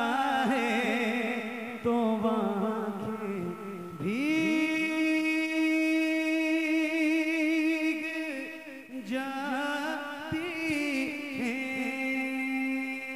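Solo male voice singing a naat into a microphone, unaccompanied, in drawn-out lines with vibrato; one long held note from about four seconds in until past eight seconds.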